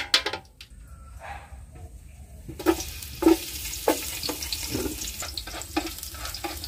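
Chopped garlic sizzling in hot oil in a stainless steel pot, starting about two and a half seconds in, with repeated scraping and knocking of a utensil as garlic is pushed off a wooden cutting board and stirred. A few sharp clicks right at the start.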